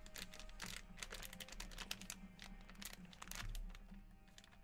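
Faint crinkling and clicking of trading-card packs being handled and shifted on a table, a quick run of small rustles and taps.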